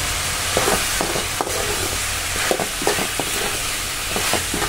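Cut vegetables frying in oil in a kadai with a steady sizzle, while a ladle stirs them, scraping and knocking against the pan a dozen or so times.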